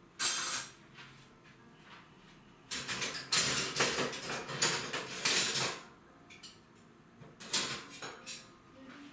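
Dishes and cutlery clattering in a kitchen sink as they are handled, in irregular bursts: one just after the start, a busy run in the middle, and a few more near the end.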